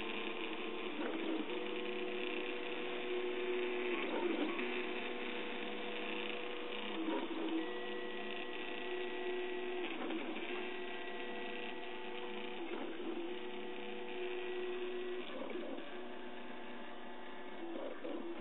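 RepRap Huxley 3D printer running a print, its stepper motors giving a set of steady tones that jump to a new pitch every second or two, with a brief rattle at each change.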